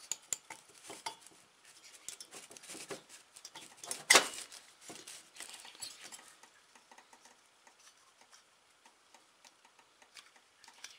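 Crinkling plastic bag and light clicks and clinks of small metal engine parts handled on a bench while a small two-stroke engine's cylinder is fitted over the piston, with one sharper knock about four seconds in.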